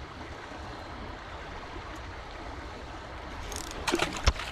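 Steady rushing outdoor noise, with a quick cluster of sharp knocks and clicks about four seconds in.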